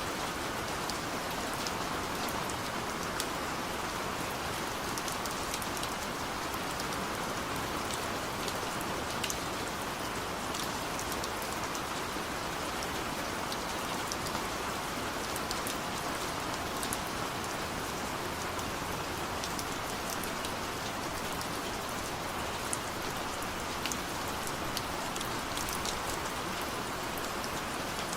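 Heavy rain falling steadily, a constant hiss of rain with scattered sharp drip ticks.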